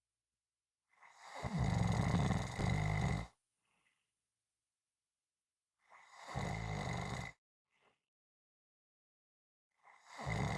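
A person snoring loudly: three snores about four seconds apart, the first about 2 seconds long and the longest, with quiet gaps between them.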